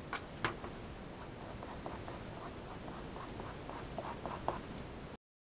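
Pencil sketching on drawing paper: a run of short, quick scratching strokes, with a few louder ones at the start and a cluster just before the sound cuts off abruptly near the end.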